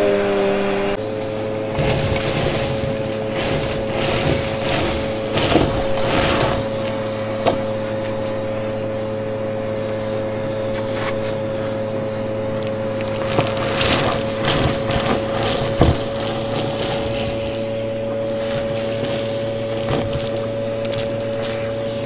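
Vacuum cleaner running with a steady motor hum as it sucks up crunchy debris, which crackles and clicks in spells, mostly about two to seven seconds in and again around thirteen to sixteen seconds. Its motor note shifts slightly about a second in.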